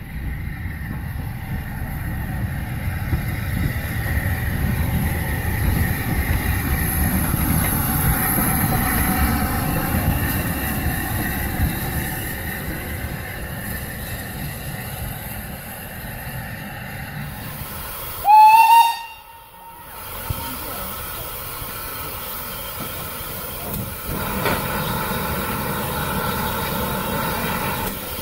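Steam locomotive running with a steady rumble and hiss of steam. About 18 seconds in it gives one short, loud whistle blast lasting about a second, followed by more steam hiss.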